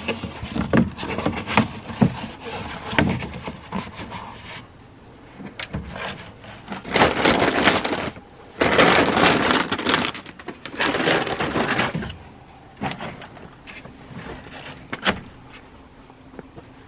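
Cardboard rustling and scraping against the inside of a garbage can as it is bent and pressed into place, with clicks and knocks. The loudest stretch is a run of long scraping rustles in the middle.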